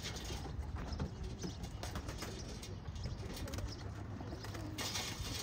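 Racing pigeons cooing around the loft.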